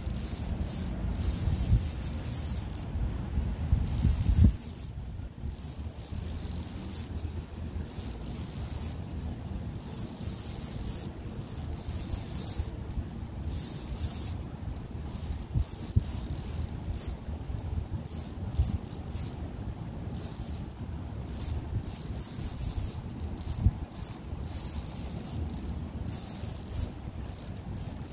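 Spinning reel being cranked, its gears clicking steadily as line is wound in against the pull of a hooked fish. A low rumble covers the first four or so seconds.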